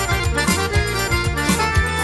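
Forró band playing an instrumental passage: an accordion leads over a steady drum beat with bass and cymbals.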